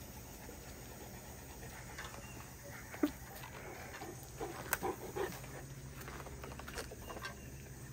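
A Great Dane sniffing and breathing close by, nose to the dirt, with a few short scuffs. A sharp click about three seconds in is the loudest sound.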